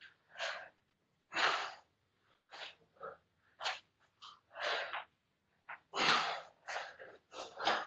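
Heavy breathing from exertion: short, forceful breaths in and out, about one to two a second.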